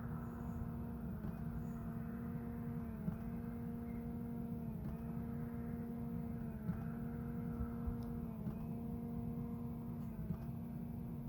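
Parked BMW just after its engine is switched off following a drive: a steady electric hum with a click about every two seconds, the hum sagging briefly at each click.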